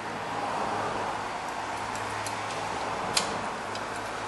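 Light metallic clicks of pliers squeezing a new horseshoe clip onto a drum brake's parking brake lever pin, with one sharper click about three seconds in, over a steady background hum.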